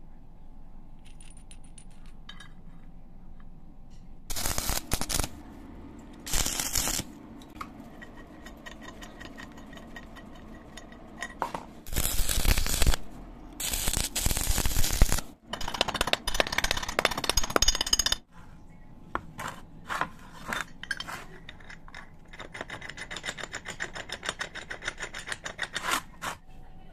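Electric arc welding in several crackling bursts, a nut being welded onto a steel block, with metal clinks and taps of the parts being handled between the bursts.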